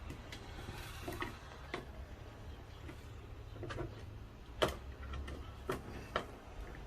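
Irregular sharp metal clicks and taps of a screwdriver and small screws on a mortice sashlock's case as the screws are tightened, the loudest tap a little past the middle, over a low steady hum.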